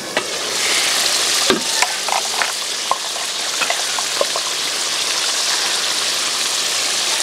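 Goose meat frying in spiced oil in an aluminium pot, a steady sizzling hiss that swells just after the start as the lid comes off. A single sharp metal clink about one and a half seconds in.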